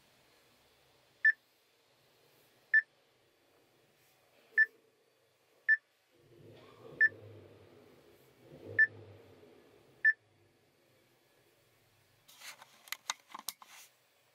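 Chery Tiggo 8 infotainment touchscreen giving short, high confirmation beeps, seven in all, about one to two seconds apart, each marking a tap on the screen. A few sharp clicks follow near the end.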